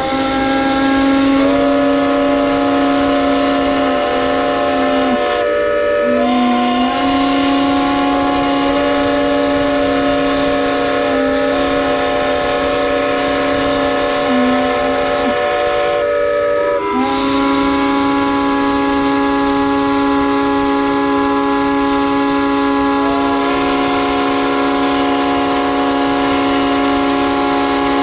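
Several steam whistles blowing together in a loud, sustained chord of steady tones. Individual whistles cut out and come back in, so the chord shifts, with brief dips about five and about seventeen seconds in.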